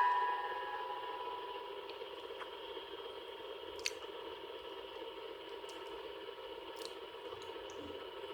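An electronic alert tone dies away in the first second, leaving the steady low hiss of an old broadcast recording with a faint held tone. A single sharp click comes just under four seconds in.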